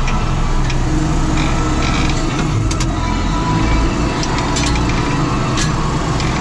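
John Deere 6920S tractor's six-cylinder diesel engine running steadily under load, heard from inside the cab while it pulls a power harrow and seed drill. A few sharp clicks and rattles come through in the middle.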